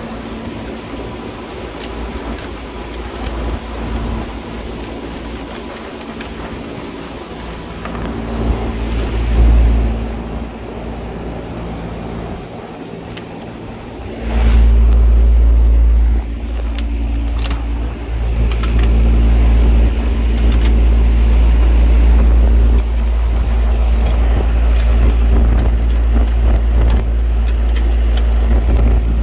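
Steady low hum of running refrigeration machinery, with light metallic clicks of a wrench on the fan motor's mounting bolts. About halfway through, a deep rumble comes in much louder and stays.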